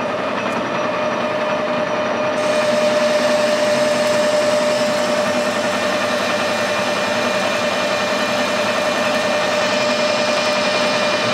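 Metal lathe running with a steady whine while its cutting tool turns down the diameter of a 50 mm steel bar. A brighter hiss joins about two seconds in.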